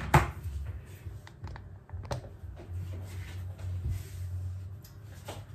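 Kitchen clatter: a knock as a pizza dish is set down on the countertop, then light clicks and rattles of cutlery being picked out of a dish drainer to cut the pizza, over a low steady hum.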